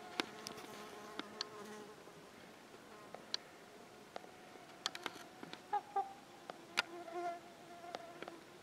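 Trumpeter swans giving faint honking calls during a territorial dispute: a drawn-out call at the start, then shorter ones about six and seven seconds in. Scattered sharp clicks are heard between the calls.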